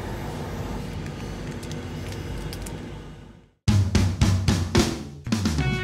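A steady low background hum fades to a moment of silence, then a quick run of drum-kit hits breaks in as music starts.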